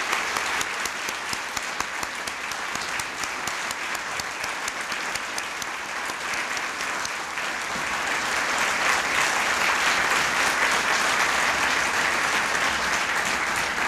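Large audience applauding steadily, the clapping growing a little louder in the second half.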